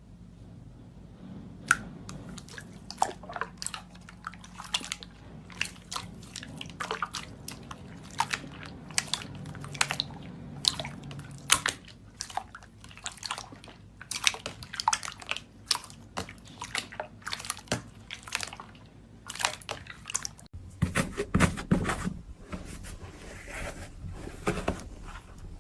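Slime being squeezed and kneaded by hand, giving a dense, irregular run of sticky clicks, pops and crackles. Near the end the handling turns heavier, with deeper squelching under the clicks.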